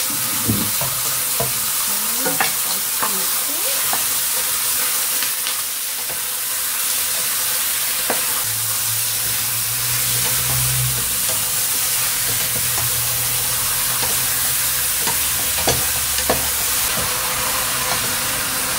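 Pork pieces sizzling as they fry in oil in a large stainless-steel stockpot, stirred with a wooden spoon that knocks against the pot now and then.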